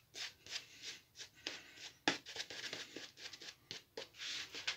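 Shaving brush lathering soap on a bearded face: a run of short bristly swishes, about two a second, with one longer swish near the end.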